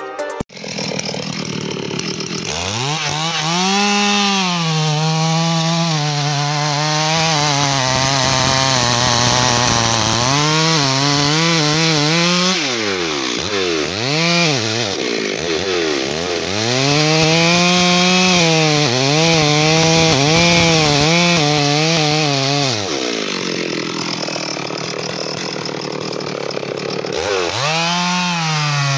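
Stihl MS 382 two-stroke chainsaw cutting into the base of a teak trunk, its engine pitch rising and falling as the throttle is worked. Midway it drops and climbs quickly several times, and near the end it settles lower for a few seconds before revving up again.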